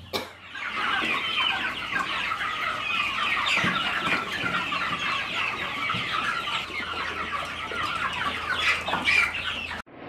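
A crowded flock of young broiler chickens cheeping continuously, many short high calls overlapping into one dense chatter. It cuts off abruptly just before the end.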